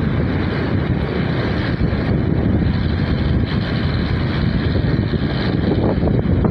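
Steady rushing and rumbling of a moving vehicle on the road, with wind buffeting the microphone. The noise is heaviest in the deep range.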